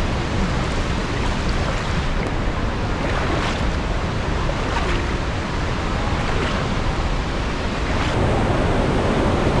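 Fast-flowing river water rushing steadily around a person wading through a strong current, with a few faint splashes.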